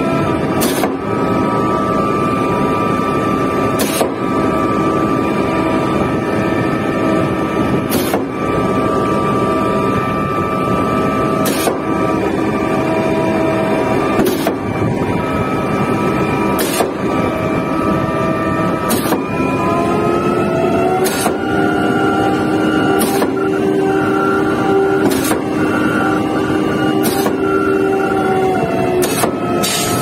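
Putzmeister 49-5 truck-mounted concrete pump running, its engine and hydraulic pumps giving a steady whine with a sharp knock every few seconds as the pumping strokes change over. About twenty seconds in the pitch steps up and the knocks come closer together, about every two seconds, as the output dial is turned up.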